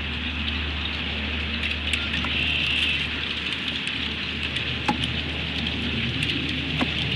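Hailstones and rain pattering on the branches and sticks around the nest as many small, irregular, sharp ticks over a steady hiss.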